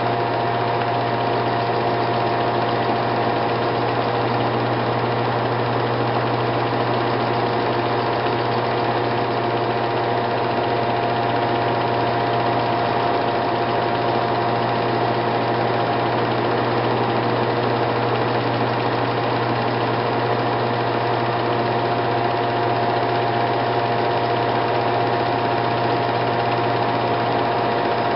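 A home-movie film projector running: a steady mechanical whir over a low hum.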